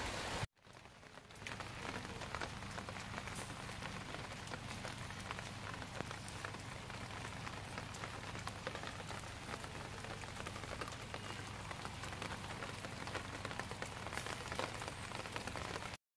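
Meat sizzling and charcoal crackling under a wire grill basket over a charcoal fire: a steady crackling hiss. It drops out briefly about half a second in, then runs evenly until it cuts off suddenly near the end.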